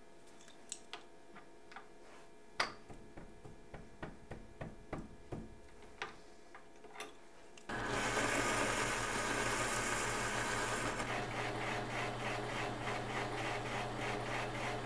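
Light clicks and knocks as a metal spindle adapter is handled on a Logan lathe's spindle nose, then about eight seconds in the lathe is suddenly running, with a steady motor hum and a hissing cut as the tool turns the metal adapter.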